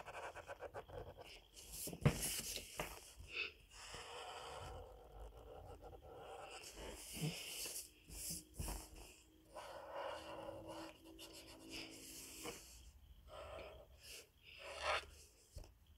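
Felt-tip marker drawn across paper in a series of short rubbing strokes, with a sharp knock about two seconds in.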